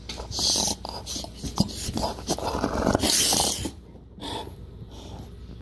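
American bulldog puppy making breathy, unpitched huffing noises at being pestered: a short one about half a second in and a longer, louder one from about two to three and a half seconds.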